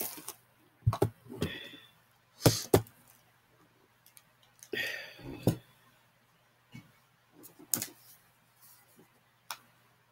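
Makeup palettes and tools being handled on a vanity: scattered sharp clicks and knocks as cases are opened, closed and set down, the loudest a double knock about two and a half seconds in, with brief scraping in between.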